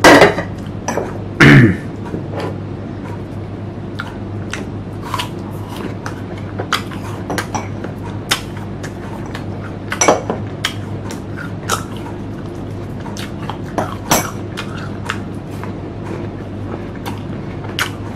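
Close-miked chewing of crisp unripe green mango: a scatter of sharp crunches and wet mouth clicks over a steady low hum.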